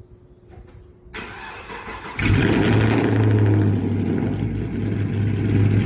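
Chevrolet Camaro SS V8 cold start: the starter cranks for about a second, then the engine catches with a jump in loudness and runs at a steady idle. The engine is throwing a misfire on cylinder 6, which the owner suspects may be something internal since new spark plugs and a coil pack haven't cured it.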